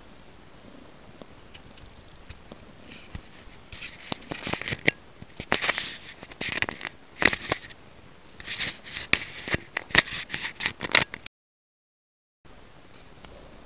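Domestic cat chewing small pieces of raw meat close to the microphone: a run of quick clicks and short noisy chewing bursts starting a few seconds in, cutting off suddenly near the end.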